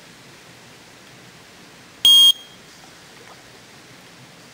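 Electronic carp-fishing bite alarm giving one short, loud beep about two seconds in, set off by line moving over it while a carp is being played. Otherwise a faint steady hiss.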